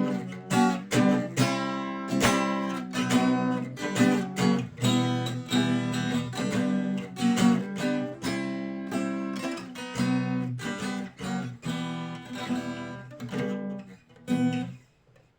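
Acoustic guitar strumming chords in a steady rhythm, the song's closing instrumental bars. The strumming stops with a last chord about a second before the end.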